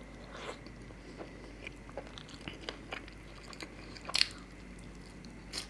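Close-miked eating: chewing with small wet clicks and lip sounds as rumali roti and chicken curry are eaten, with a louder crunchy bite about four seconds in.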